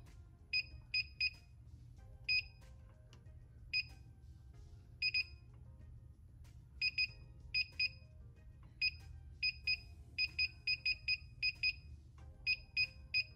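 Short, identical electronic beeps from a heat press's digital control panel, one for each press of its up and down buttons as the press time is set. They come at uneven intervals, sparse at first, then in quick runs of several beeps in the second half.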